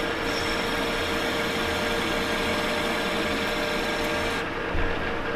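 Metal lathe running with its cutting tool working the end of a spinning steel hydraulic cylinder rod: a steady hiss with a thin whine over the machine's hum. The cutting noise stops about four seconds in, and the lathe keeps running.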